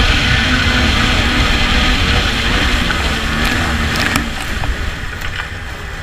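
Two-stroke snowmobile engine running hard as the sled skims across open water. It backs off about four seconds in.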